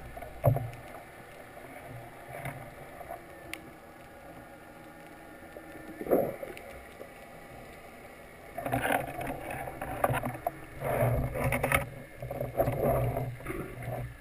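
Underwater sound heard through a camera housing: a low muffled wash with a short knock about half a second in and another about six seconds in, then a run of louder, irregular muffled bursts in the second half.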